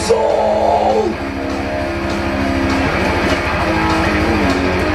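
Metal-style band music: electric guitar chords strummed over bass, with a sung word held and ending about a second in.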